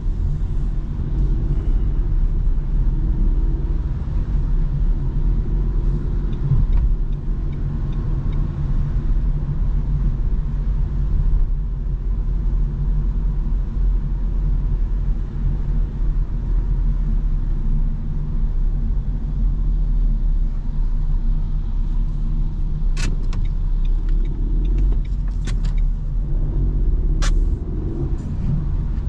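Steady low rumble inside the cabin of a Renault Clio V as it drives through the city on a wet road: its 1.0 TCe three-cylinder petrol engine running under light load, with tyre noise. A few sharp clicks come near the end.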